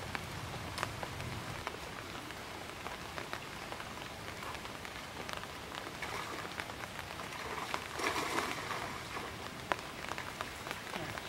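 Rain falling steadily on a pond's surface, with many small sharp drop clicks. About eight seconds in, a short louder burst of water splashing as the cast net is pulled out of the water.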